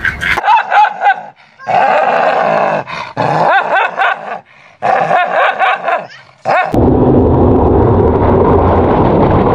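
A dog barking and snarling at its own reflection in a mirror, calls broken by short gaps. About seven seconds in, this gives way to a steady rush of surf and wind.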